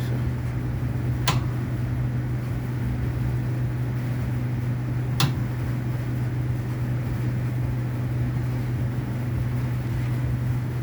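A steady low machine hum, with two sharp clicks, one about a second in and one about five seconds in.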